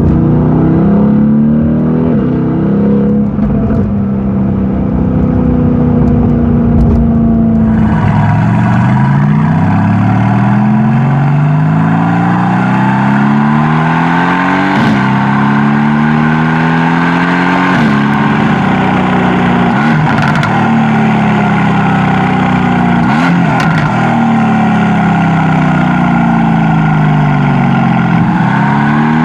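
A 2020 Mercedes-AMG GT's engine accelerating hard through the gears, its note climbing and then dropping sharply at each upshift, several times over. Some of the shifts carry a short, sharp crack from the exhaust.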